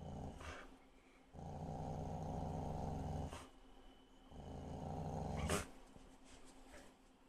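Dogs growling in play while tugging on a rope toy: three low growls, the middle one longest, with a sudden sharp sound as the second and third break off. The last of these, about five and a half seconds in, is the loudest.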